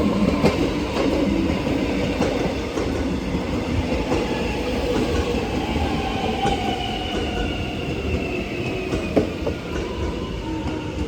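X'Trapolis electric train arriving and slowing, with a whine that falls slowly in pitch and wheels clicking over rail joints.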